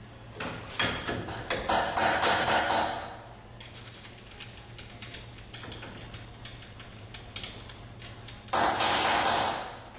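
Metal clicks and knocks as the cutting head of an on-car brake lathe is handled and fitted against a brake disc, with two longer, louder stretches of metal-on-metal rattling, one about half a second in and one near the end.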